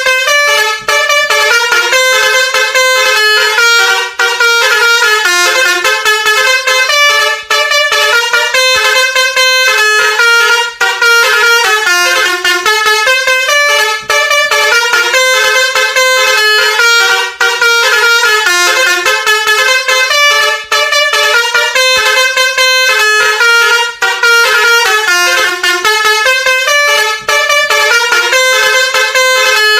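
Basuri multi-tone musical horn playing a tune of stepped notes. The phrase repeats about every three seconds with a short break between repeats.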